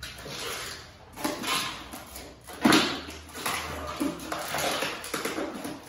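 Protective plastic film being peeled off a stainless steel worktop: a series of irregular crackling, rustling pulls with a few short squeaks, and one sharper crack about two and a half seconds in.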